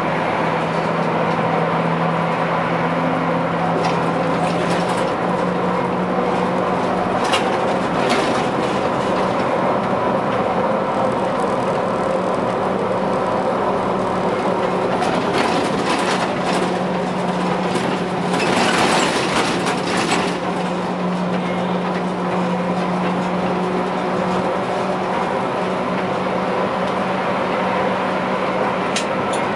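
Škoda 15TrM trolleybus driving in city traffic, heard from the cab: steady road and running noise with a low electric hum that fades briefly in the middle and comes back.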